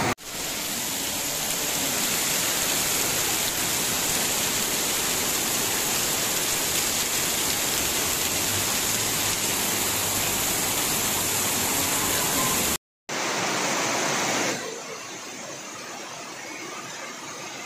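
Heavy rain pouring down in a dense, steady hiss. It cuts out for a moment about thirteen seconds in, then turns quieter about a second and a half later.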